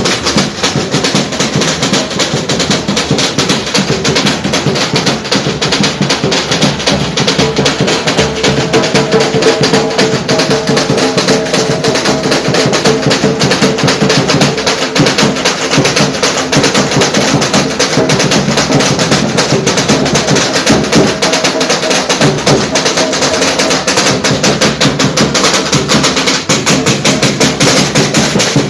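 Batucada: a samba percussion ensemble of drums and hand percussion playing a fast, dense, steady rhythm.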